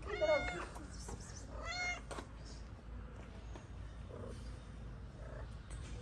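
A cat meows twice: a loud, drawn-out meow at the start, and a shorter one about a second and a half later.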